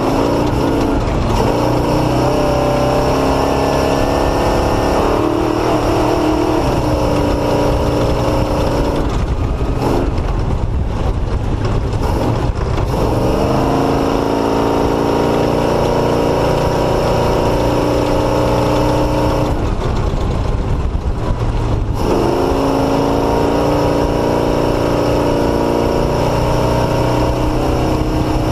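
Off-road motorcycle engine under throttle, its pitch climbing steadily over several seconds, then dropping off. This happens three times, over a steady low rumble and rushing wind noise.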